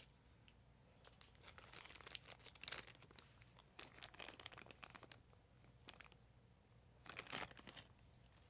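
Faint crinkling and rustling of packaging being handled and unwrapped, in scattered small crackles with a louder burst of crinkling about seven seconds in.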